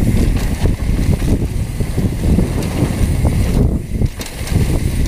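Mountain bike ridden fast down a rough dirt trail: wind rumbling on the camera microphone, with the rattle and knocks of the bike over the bumpy ground, easing briefly a little under four seconds in.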